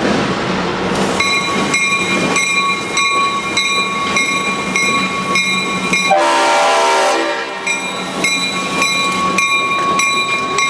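EMD GP11 diesel locomotive passing close by: its bell rings steadily, about twice a second, over the low hum of the engine, and about six seconds in the horn sounds one blast of about a second.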